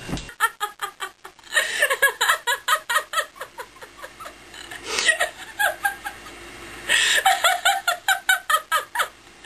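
A young woman laughing hard and uncontrollably: fast runs of short laughing pulses, about five a second, broken three times by a noisy in-breath before the next run.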